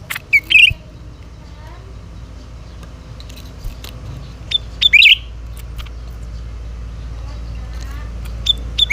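Cucak ranting calling: a short, loud call phrase, a high note followed by a quick burst of lower notes, given three times about four seconds apart. A steady low hum runs underneath.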